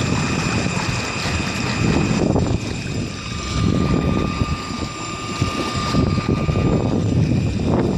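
Small outboard motor running steadily, driving a boat across open water, with a steady high whine and a mid-pitched whine that comes in about three seconds in and drops out near the end, over an uneven low rumble.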